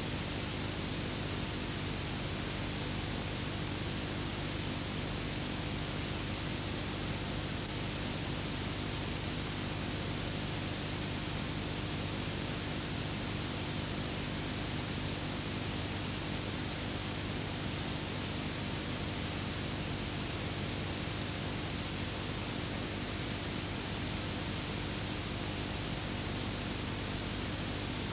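Steady hiss and static with a low hum underneath, unchanging throughout: the background noise of an old 1950s film transfer with no soundtrack over the title cards.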